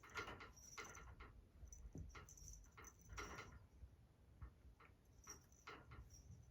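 Faint, irregular light taps and scuffles, a few to a second, of cats moving about and play-fighting on a floor.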